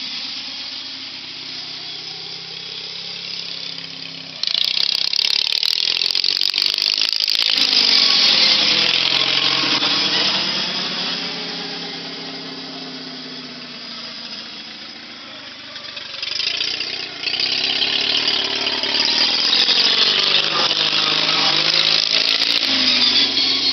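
Riding lawn mower engine running as the mower drives back and forth past the microphone. It grows loud about four seconds in, fades, and grows loud again from about sixteen seconds in, its tone sweeping up and down as it passes.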